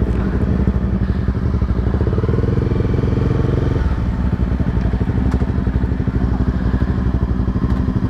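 Honda CBR300R's single-cylinder engine running at low speed, with a louder stretch about two seconds in that cuts off abruptly just before the four-second mark.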